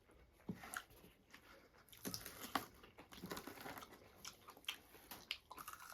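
Faint eating sounds close to the microphone: chewing, with soft crunches and mouth clicks at irregular intervals.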